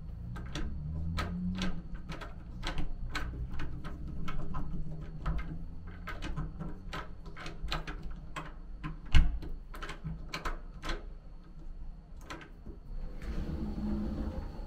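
A run of sharp clicks and light knocks, two or three a second, as hotel-room doors and fittings are handled, with one heavier thump of a lever-handled door about nine seconds in. A faint steady high whine sits underneath.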